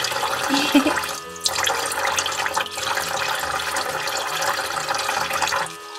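Water running from a toy sink's faucet and splashing over a plastic toy cucumber as it is washed. The splashing drops away shortly before the end.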